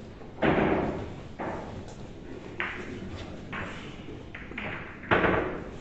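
A series of about six sharp knocks, roughly one a second, each dying away briefly in a reverberant hall. The loudest come about half a second in and near the end.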